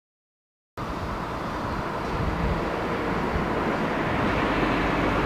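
GWR 4575-class 2-6-2 tank locomotive 5552 working away from a station with its train: a steady rumbling noise that cuts in suddenly about a second in and grows slightly louder.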